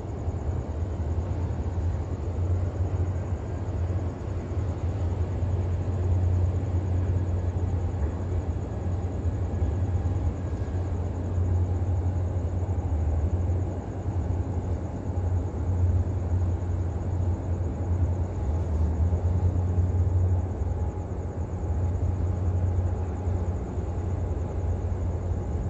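Steady low rumble of the container ship HMM Daon's engines as the 366 m vessel moves slowly past, with a faint hum running through it.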